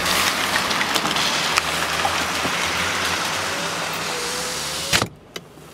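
Nissan Note's 1.6-litre four-cylinder petrol engine idling, heard from inside the cabin, as a steady low hum under a dense hiss. About five seconds in there is a sharp click, and the sound drops much quieter.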